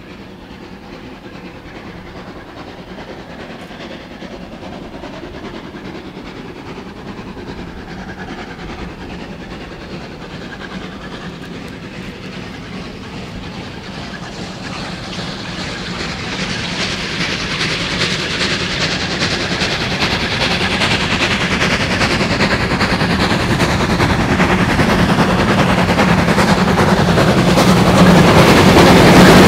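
Steam train approaching on the line, growing steadily louder until it is close and loud near the end.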